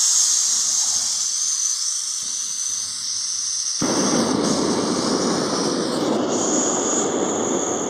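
Backpacking gas canister stove hissing steadily. About four seconds in, a louder, fuller rushing noise starts suddenly and keeps on.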